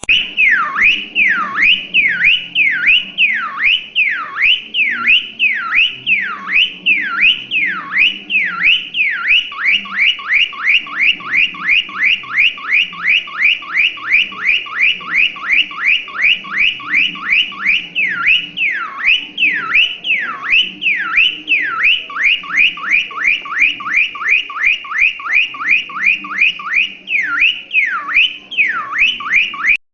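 Cockatiel whistling an imitation of a siren: a long run of loud, sweeping up-and-down whistles. They alternate between slower swoops at about two a second and fast yelping sweeps at about five a second.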